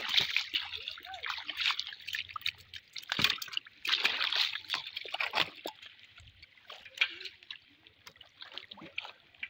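Shallow muddy pond water sloshing and splashing as someone wades through it beside a plastic fish crate sitting in the water, in irregular bursts over the first half, then thinning to a few small splashes.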